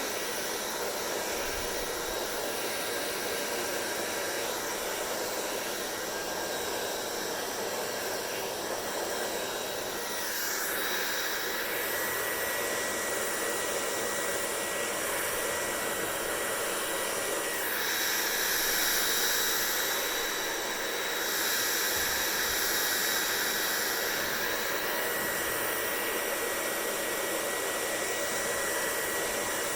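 Hair dryer blowing steadily, a rushing airflow with a thin high whine from its motor; the airflow sound brightens twice, about ten and eighteen seconds in.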